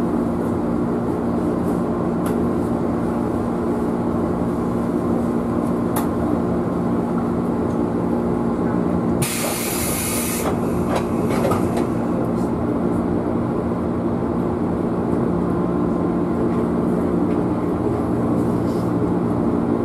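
JR West 113 series electric train running at steady speed, heard from inside the front car: a continuous running rumble with a steady multi-tone hum. About nine seconds in, a short, loud hiss lasts about a second.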